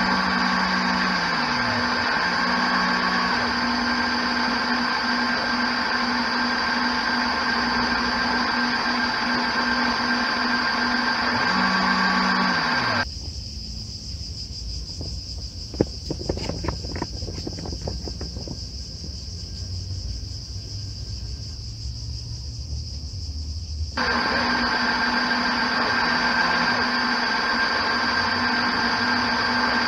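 Steady electric whine of a LEGO Technic RC landing craft's two L motors and gearing driving it across the water with a full load, heard from on board. About 13 s in it gives way to a quieter low rumble with a few clicks, and about 11 s later the steady motor whine returns.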